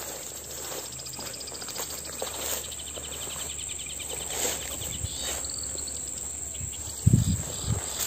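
Insects trilling steadily in a rapid, even high-pitched pulse, over the rustle of someone walking through low vegetation. A few louder low bumps come about seven seconds in.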